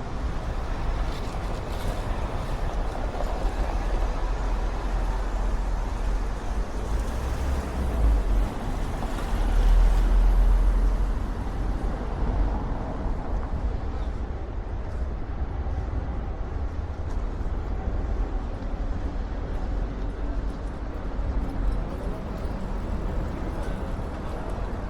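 Wind rumbling on the camera's microphone through its wind protection, surging stronger twice, about eight and ten seconds in, over steady traffic noise.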